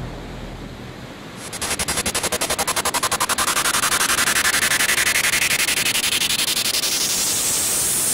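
A sound effect laid over the picture: about a second and a half in, a loud, rapid fluttering rattle starts, with a tone inside it that climbs steadily in pitch.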